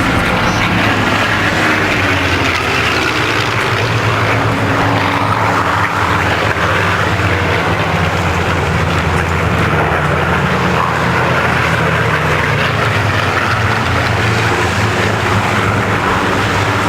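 Propeller-driven Second World War fighters flying past, their piston engines making a loud, steady drone that drifts slightly in pitch.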